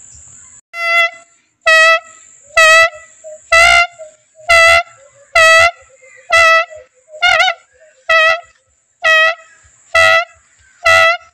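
Homemade torotot horn made from a hollow papaya leaf stalk, blown in about a dozen short toots, roughly one a second, each at much the same pitch with a wavering tone.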